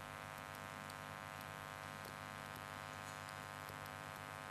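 Room tone: a steady low electrical hum with faint hiss and a few faint ticks.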